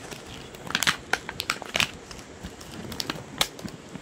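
Scissors clicking and snipping at stiff packaging, with the packaging crinkling, in an irregular run of sharp clicks; the packaging is not giving way.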